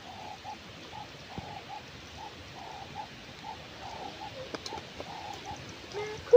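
A bird calling with a long run of soft, low, evenly repeated notes, like a dove cooing, over quiet outdoor background.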